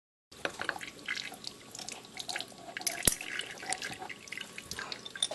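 Irregular small metallic clicks and taps from working the oil filter cover's 8mm bolts and pulling the oil filter from a Kawasaki Bayou 300 ATV engine, starting abruptly, with one sharper knock about three seconds in.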